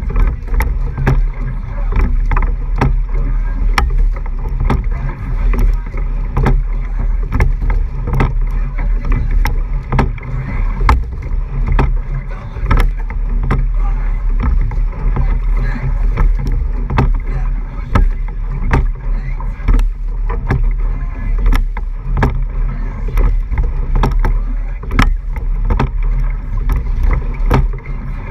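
Rowing eight under way, heard from a camera on the hull just above the water: a steady low rush of water and wind on the microphone, with frequent sharp clicks of the oars working in their oarlocks.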